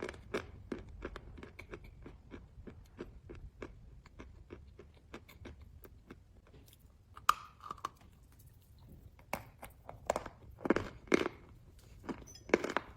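Close-miked chewing of chalk: a steady run of small crisp crunches, about three a second, then louder crunchy bites around the middle and again in the last few seconds.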